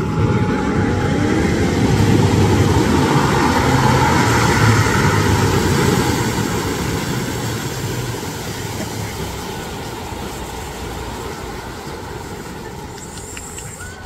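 Engine of a rigid inflatable tour boat running at speed as it passes, with the rush of spray and wake. It is loudest a few seconds in, then fades steadily over the second half as the boat moves away.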